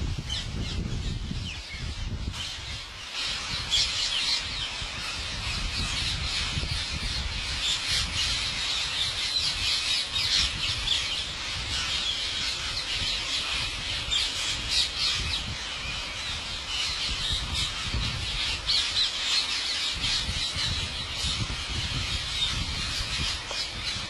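A large flock of rose-ringed parakeets calling all at once: a constant din of shrill, overlapping squawks, with a low rumble underneath.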